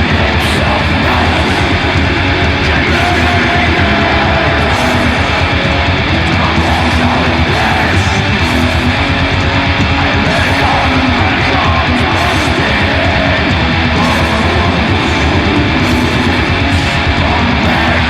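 Black metal song: heavily distorted electric guitars in a dense, unbroken wall of sound at a steady loud level.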